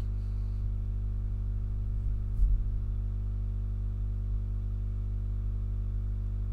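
A steady low hum throughout, with one soft knock about two and a half seconds in as the plastic model car is handled.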